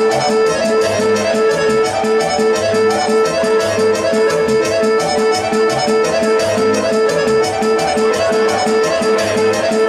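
Serbian kolo folk dance music led by accordion and violin, played at a quick, steady beat.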